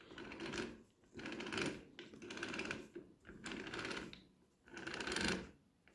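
Gears of a rebuilt Ford Model T rear-axle differential with a new gear set, turned by hand in about five short strokes, each a fine rapid clicking whir with brief pauses between. The gears mesh cleanly.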